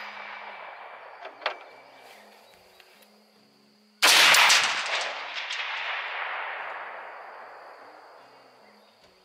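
A single rifle shot about four seconds in, its report echoing and dying away over several seconds. Before it, the tail of an earlier shot fades out, and there is one sharp tap about a second and a half in.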